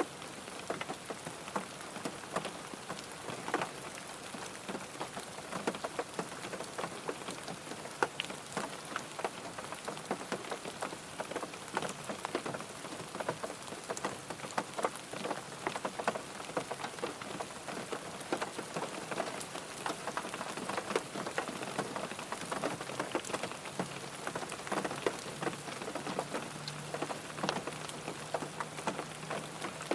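Rain falling on a car, many drops ticking sharply on the body over a steady hiss of rainfall.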